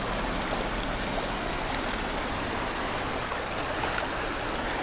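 Steady rush of a shallow river's current flowing over gravel, with a single light tick about four seconds in.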